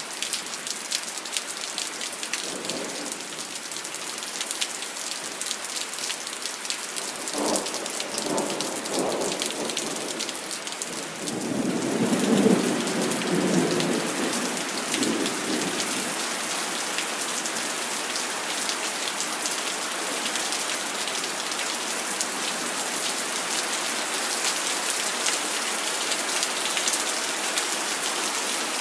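Steady heavy rain with thunder rumbling three times, the longest and loudest roll a little before halfway through. The rain grows heavier from then on.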